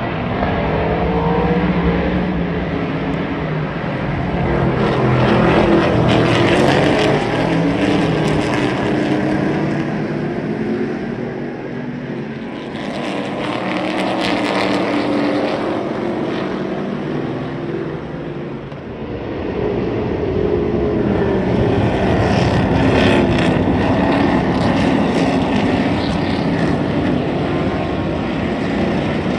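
Several Trans Am race cars' V8 engines racing past at full throttle, many engine notes overlapping and rising and falling in pitch. The sound swells twice as groups of cars go by.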